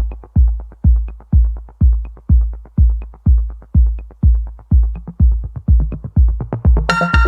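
Electronic dance music intro: a heavy kick drum thumping about twice a second with light ticks between, and a bright synth chord coming in near the end.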